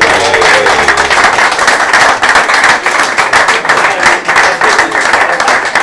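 Applause from a roomful of people: many hands clapping quickly and densely.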